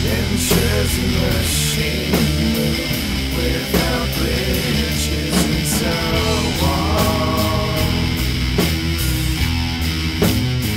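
Loud heavy rock music: distorted guitars over a steady drum beat, with a few notes sliding in pitch about six to seven seconds in.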